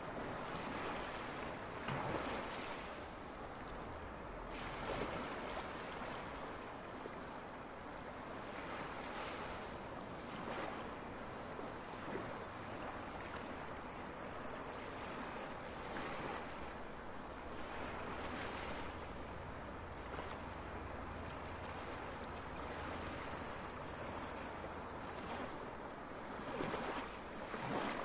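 Ocean surf: waves breaking and washing up onto the shore in a steady hiss, swelling with each wave every few seconds.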